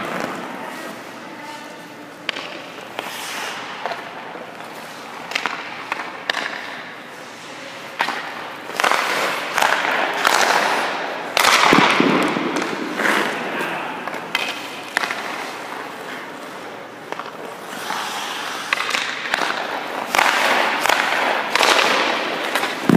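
Ice hockey goalie's skates scraping and carving across the ice, and his leg pads knocking down onto it, as he drops into the butterfly and pushes back up: several hissing scrapes with sharp knocks among them.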